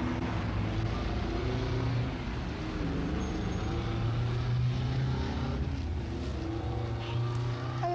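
Motor vehicle engine running, a steady low hum with wavering tones over it.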